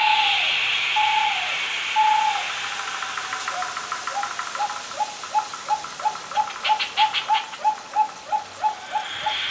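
Small hand-held whistle blown in short, falling, owl-like hoots. The hoots come about once a second at first, then quicken to about three a second from around four seconds in. A hissing rattle sounds behind it, fading out after about three seconds, and a fast clicking runs through the middle.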